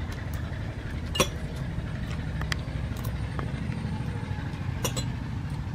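Eating at a plate: a few sharp clicks and clinks, the loudest about a second in and two close together near the end, over a steady low background rumble.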